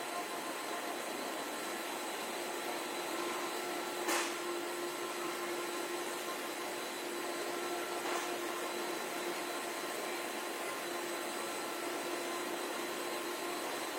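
A small motor running steadily with a hissing whirr and a constant hum, with faint clicks about four and eight seconds in.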